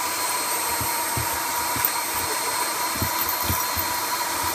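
Vacuum cleaner running steadily: an even motor noise with a thin, steady high whine, and a few soft low knocks scattered through it.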